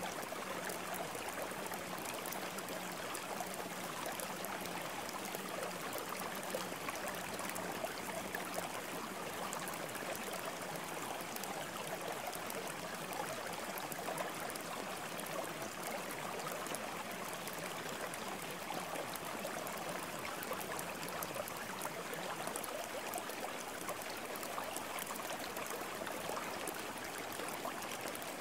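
Steady rushing-water noise like a flowing stream, even and unbroken throughout.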